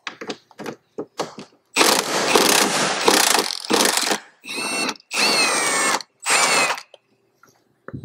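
Cordless impact driver with a T50 Torx bit working a seat-belt anchor bolt. After a few light clicks it hammers for about two seconds, then runs three shorter times with a whining motor; in the middle run the whine falls in pitch as it stops.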